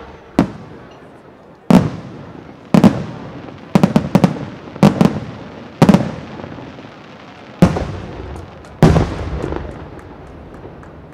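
Aerial firework shells bursting in the sky: a string of sharp bangs about a second apart, each trailing off in a rolling echo, with a quick cluster of cracks around four seconds in.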